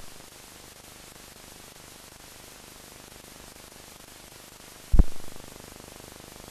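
Steady hiss of an old film soundtrack with no other sound on it, broken about five seconds in by one sharp low thump that dies away within half a second, the thump of a film splice at a cut between shots.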